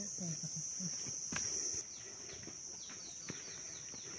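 Insects shrilling in one steady high drone. About halfway through, a bird gives a quick run of short falling chirps.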